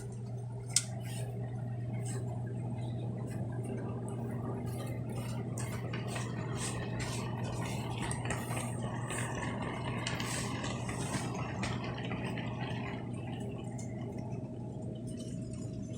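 HO scale model train running on the layout: a steady motor hum with many small irregular clicks and rattles from the wheels and cars on the track.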